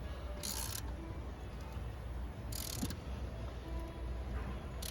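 A thread tap being turned by hand in a drilled bolt hole of an aluminium engine block, cutting new threads for a thread repair insert: three short scraping bursts about two seconds apart over a low steady hum.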